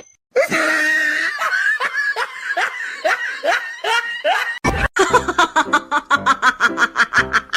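Laughter in two runs. First come short rising laugh-like calls about two a second. After a break a little past halfway, a faster run of rapid laughing pulses follows, about six a second.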